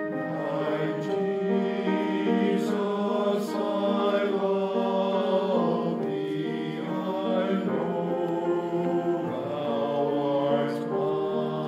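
Church choir singing in parts, moving through slow, held chords, with the hiss of sung 's' sounds standing out a few times.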